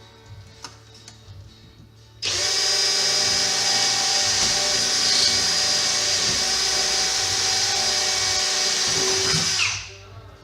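Power drill running steadily, drilling through the car's sheet steel. It starts abruptly about two seconds in and winds down after about seven and a half seconds.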